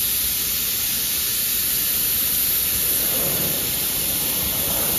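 Compressed-air spray gun spraying direct-to-metal high-build primer: a steady hiss of air and atomised primer.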